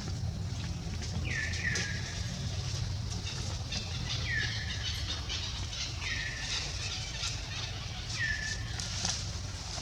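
Four short, high whistle-like animal calls, each falling in pitch and then levelling off, spaced a couple of seconds apart, over a steady low hum.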